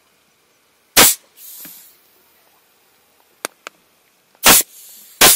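Compressed air venting from a compressor-fed pneumatic paste gun: three short, sharp blasts, about one second in, near four and a half seconds and at the very end, the first two trailing off in a softer hiss of air. Two light clicks come between them.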